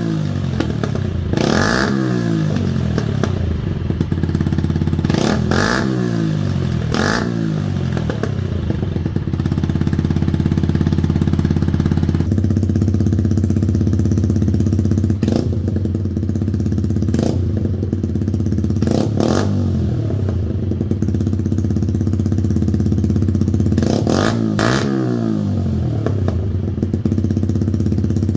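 Yamaha YZF-R125's 125 cc single-cylinder four-stroke engine idling through an exhaust under test, blipped with short throttle revs that rise and fall back to idle every few seconds. The idle tone changes about twelve seconds in.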